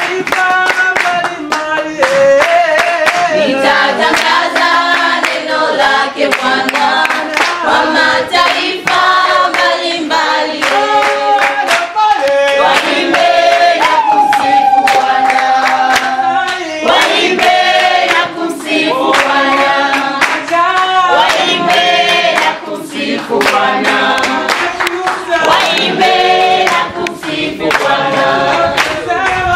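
Church congregation singing a worship song together, with hand clapping along to the song.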